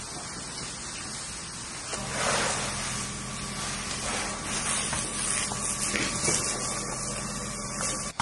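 Steady hissing rush of a fire hose spraying water onto a burning house, with a steady mechanical hum underneath from about two seconds in.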